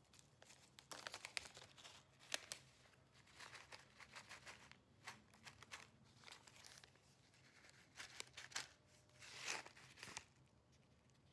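Faint crinkling and rustling in several short bouts with small clicks, the longest rustle about three-quarters of the way through, over a faint low steady hum.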